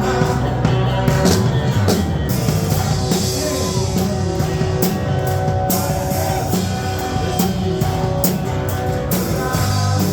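Evangelical praise song (louvor) played by a band with guitar and drum kit, with a steady beat.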